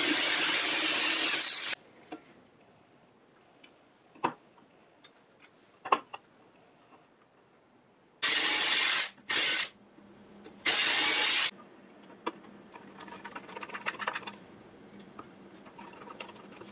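A power drill runs for under two seconds, its bit boring into the wooden, laminate-topped table top. After a few light clicks, it runs again in three short bursts about eight seconds in. From about twelve seconds, softer irregular scraping and creaking follows as a hand screwdriver drives screws into the foot pedal brackets.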